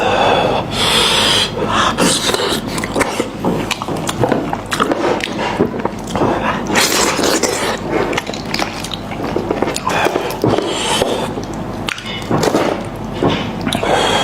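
Close-miked eating sounds: biting, tearing and chewing head meat, with many quick clicks, crackles and wet smacks.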